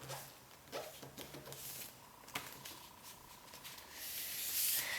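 Sheet of paper rustling and being folded and creased by hand, with a sharp tap about two and a half seconds in and a louder scraping rustle near the end as the crease is pressed down.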